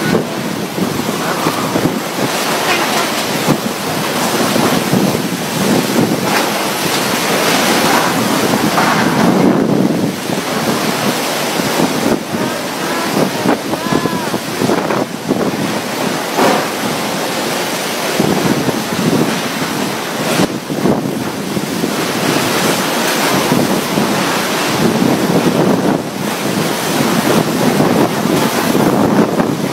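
Tropical storm wind blowing hard in gusts that rise and fall every few seconds, with wind buffeting the microphone.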